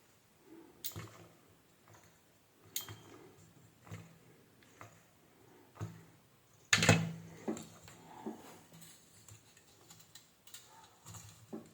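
Scattered clicks and taps of small plastic and metal parts being handled on a workbench, with one louder knock and a short rattle about seven seconds in.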